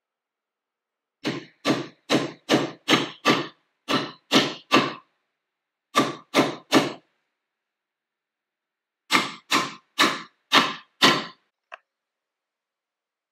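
Hammer tapping copper wire staples down over metal rods into a wooden post: sharp, evenly spaced strikes about two and a half a second, nine, then three, then six, with a faint click near the end.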